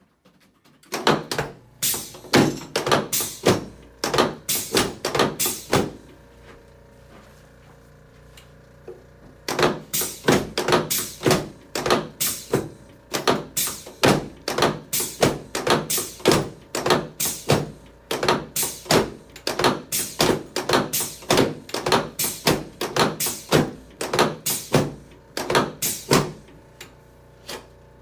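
Rapid, rhythmic thumps, about two to three a second, from hands pumping on a patient's back as she lies on a padded chiropractic table. They come in two runs, with a pause of about three seconds between them.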